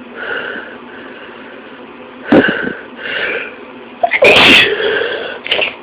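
A person sneezing repeatedly, several sharp bursts with the loudest sneeze about four seconds in.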